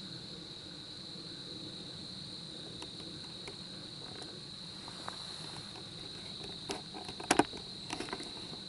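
Insects chirring in a steady high-pitched chorus. A few sharp knocks come near the end, the loudest a close double knock.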